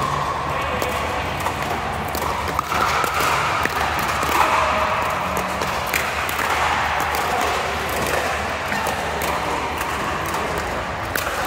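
Pickleball paddles striking the ball in irregular sharp pops, with bounces on the court and a faint murmur of voices behind.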